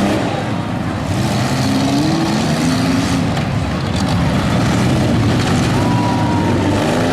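Several compact cars' engines running and revving at once in a demolition derby, their pitch rising and falling as they throttle up and back off.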